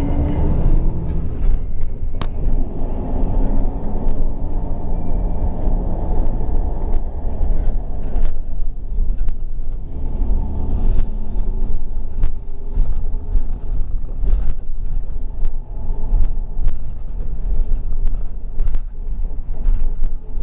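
City bus riding, heard from inside the cabin: a steady low engine and road rumble, with frequent short rattles and knocks from the bus body, more of them in the second half. An engine note rising under acceleration fades out about a second in.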